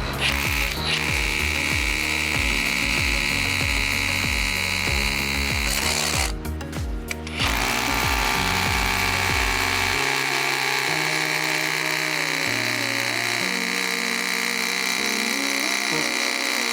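Hammer drill with a 3/16-inch bit boring into brick, with a steady high whine. It runs for about five seconds, stops briefly, then runs again for about nine seconds. Background music plays underneath.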